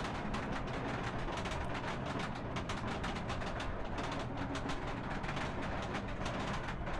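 B&M dive coaster train climbing a chain lift hill: rapid, rhythmic clacking from the lift chain and anti-rollback ratchet over a steady low rumble.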